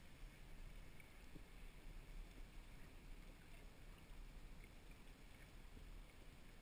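Near silence: faint underwater ambience picked up by a camera in its housing, a low steady rumble and hiss with a few faint clicks.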